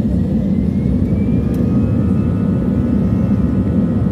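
Airbus A320's jet engines and cabin noise heard from inside the cabin while the plane moves on the ground: a steady, loud low rumble with a faint whine that rises slightly in pitch.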